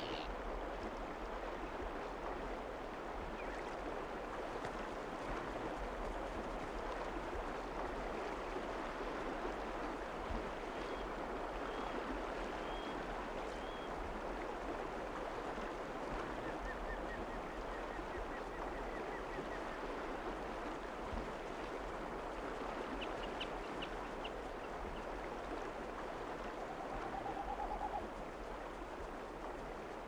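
Steady rushing of river water over stones, with a few faint bird calls: small chirps around the middle, a brief trill a little after, and a short call near the end.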